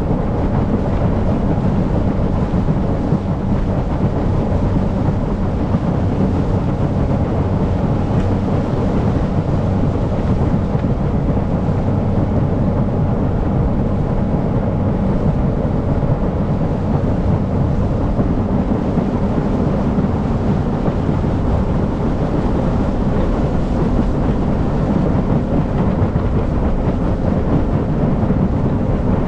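Loud, steady rumble of wind buffeting the microphone over a running engine, with a faint steady engine hum underneath.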